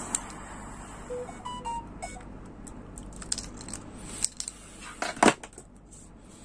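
Hands handling a paracord bracelet and its plastic side-release buckle: scattered small clicks, knocks and rustles, the sharpest near the end. A few brief faint beeps sound about a second in.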